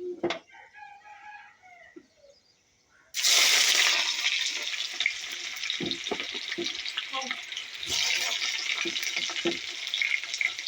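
Food frying in a pan: a loud, steady sizzle that starts suddenly about three seconds in, with scattered clicks of stirring. Faint voices are heard before it.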